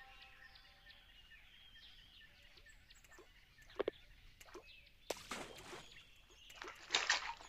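Faint outdoor ambience with small bird chirps, a few sharp clicks, and two brief rustling bursts about five and seven seconds in.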